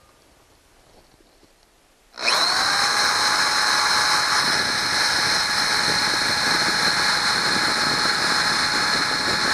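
An electric drill starts suddenly about two seconds in and runs at a steady whine. It is driving a 5/64-inch bit into the stub of a broken screw in a leaf blower's cylinder, and the bit barely cuts into the hard screw, making not much of a dent.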